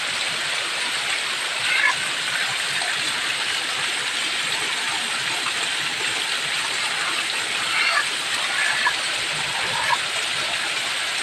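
Heavy rain falling with water running off in a steady, even hiss. A few brief faint sounds stand out over it about two seconds in and again around eight to ten seconds.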